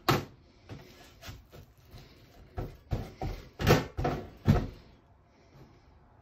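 A sharp knock right at the start, then a run of about five dull thuds and slaps as a block of raw beef is lifted, turned over and laid back down on a metal baking tray.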